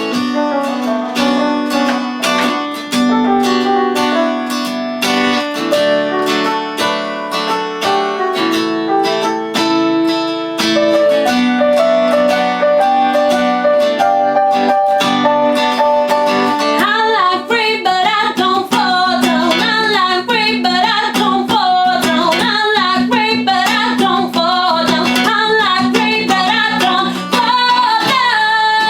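Acoustic guitar instrumental break: plucked notes over held chords, joined about two-thirds of the way in by a wavering lead melody line.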